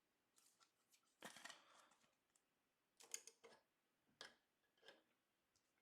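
Faint handling of trading cards: a few soft swishes and light clicks as cards are slid one behind another.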